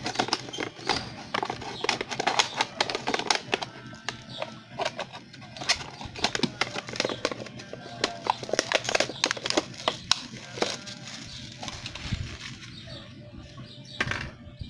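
Thin plastic soda bottle crinkling and crackling in a dense, irregular run of clicks as it is cut open by hand, with music playing in the background.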